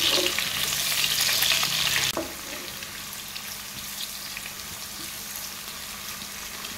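Chopped onions sizzling as they fry in hot palm oil in a pan, being stirred, with a few knocks of the spoon. The sizzle is loud for about two seconds, then drops suddenly to a quieter, steady sizzle.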